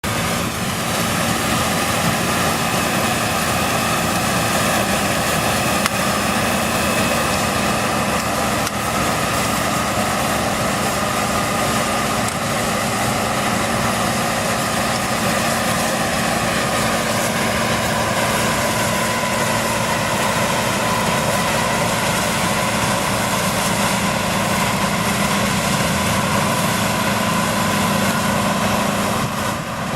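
John Deere 9670 STS combine running steadily while harvesting corn, its engine and threshing machinery making a continuous loud drone with steady whining tones over it.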